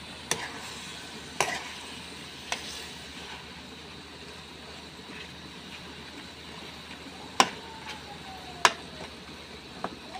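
Tomato sauce simmering and sizzling in a metal pan, with sharp clicks of a spatula striking the pan about six times, the loudest two a little after halfway.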